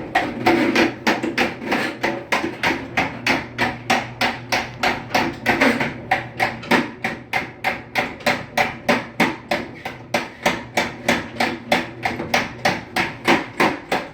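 Motorised drain-cleaning machine (sewer snake) running with a steady hum and a rhythmic knocking, about three and a half knocks a second, as the spinning cable feeds down the drain line. The operator traces the knocking to a loose screw nut on the machine.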